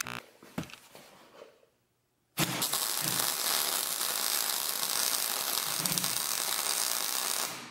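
Arc welder welding a steel winch mount plate: a steady crackling hiss that starts suddenly about two and a half seconds in and fades out near the end. Before it, a few sharp clicks and knocks.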